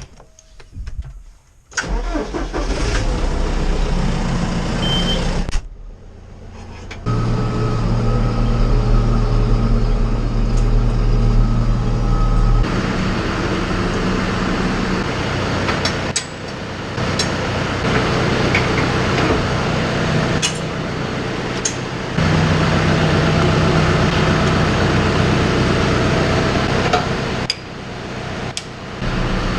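Tractor diesel engine running: it comes in suddenly about two seconds in, and its sound changes abruptly several times.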